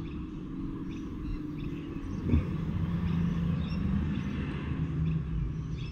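A low, steady engine-like hum, such as passing or distant traffic, with one light knock a little over two seconds in.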